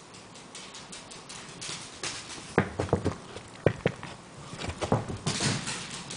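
A wire fox terrier running on a hardwood floor, its paws and claws clattering, with a run of sharp knocks in the middle and a brief scrabbling rush about five seconds in.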